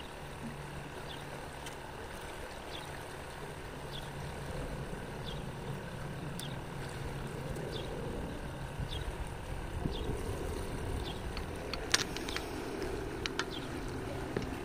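Steady outdoor water noise, like moving or lapping water, with scattered faint ticks and a few sharper clicks near the end.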